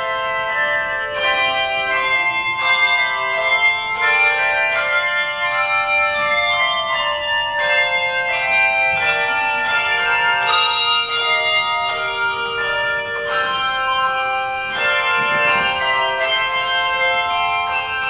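Handbell choir ringing a hymn arrangement: handbells struck in a steady run of single notes and chords, each one ringing on into the next.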